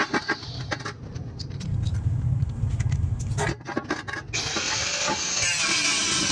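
Knocks and clicks of a steel tube being handled against a stone step. About four seconds in, an angle grinder's abrasive cut-off disc bites into the steel tube, a steady grinding cut.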